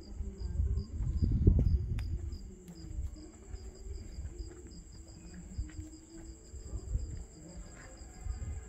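Crickets chirping in an even rhythm, about three high chirps a second, over a continuous higher insect trill. Low thumps and rustles come and go, loudest about a second and a half in.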